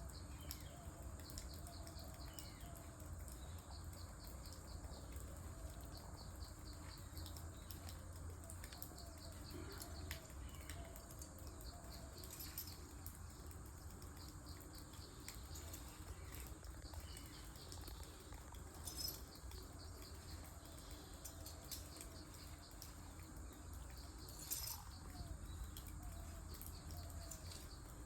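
Faint forest ambience with scattered bird chirps and calls over a steady low rumble, with a few sharp clicks.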